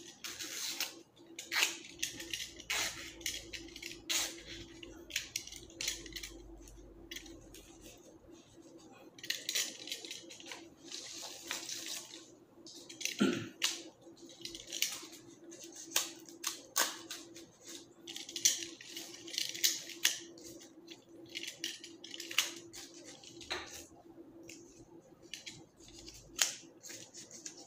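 Florist's scissors snipping and green leaves and stems rustling as they are trimmed and handled, in short irregular bursts with one sharper click about thirteen seconds in. A steady low hum runs underneath.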